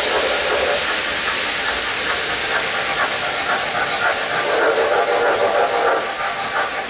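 MTH O-gauge Santa Fe 2-10-4 Texas steam locomotive running with its freight train on tubular track, its Protosound 2.0 sound system giving off a steady steam hiss over the rolling of the cars.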